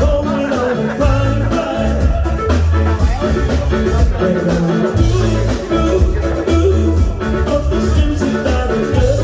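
Upbeat pop song with singing and a steady, pulsing bass beat.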